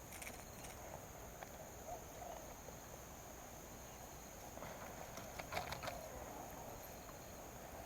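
Steady high-pitched insect chirring, with a short run of clicks and rustles near the start and again about five to six seconds in.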